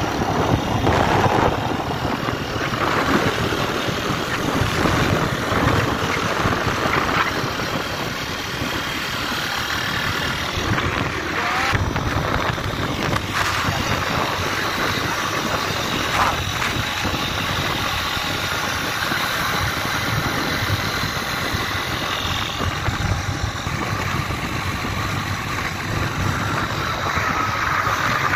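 Steady road noise of a car travelling along a highway: tyres on asphalt, wind and engine blended into a constant rush.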